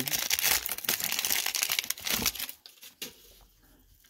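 Foil wrapper of a baseball card pack crinkling and tearing as it is ripped open and peeled off the cards; it stops about two and a half seconds in.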